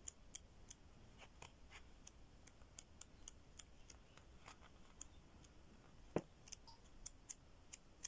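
Near silence with faint, irregular soft clicks, about three a second, as the pages of a 6x6 patterned paper pad are leafed through; one louder click comes a little past the middle.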